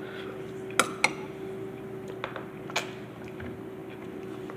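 A fork clinking sharply against a ceramic bowl a few times during the first three seconds of eating, over a steady low hum.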